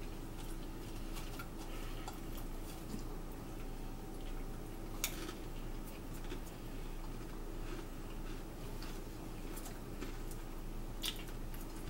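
Quiet table eating: scattered light clicks and taps as chips are picked from ceramic plates and eaten, with two sharper clicks about five and eleven seconds in, over a faint steady hum.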